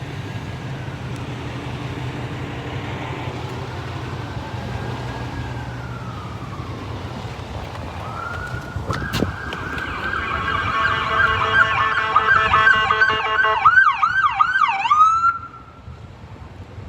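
Approaching ambulance on a code 3 run: its electronic siren at first a faint slow wail that rises and falls, then loud air horn blasts over a steady siren tone, switching to a fast yelp for a second or two before cutting off suddenly.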